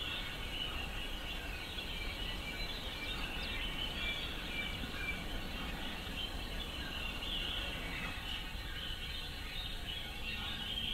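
Outdoor ambience: a steady low rumble and hiss under a continuous chorus of small birds chirping.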